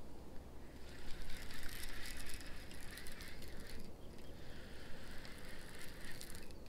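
Baitcasting reel being cranked to retrieve a lure: a steady whir with fine clicking from the gears. It comes in two spells, the first starting about a second in, with a brief pause about four seconds in.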